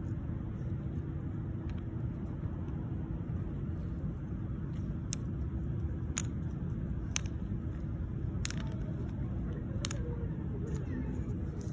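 Steady low rumble with a faint steady hum through it, broken by a handful of sharp, separate clicks.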